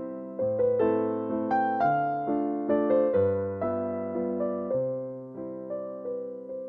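Background music: a piano waltz in A minor, with notes struck and left to fade over a low bass note about once a second.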